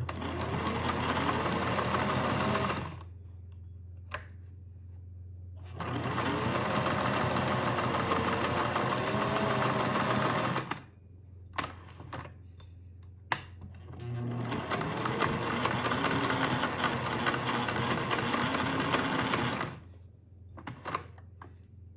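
Singer 403A sewing machine stitching a half-circle fashion-disc pattern through fabric. It runs in three stretches of a few seconds each, its motor pitch rising and falling with speed, and there are short pauses between with a few sharp clicks.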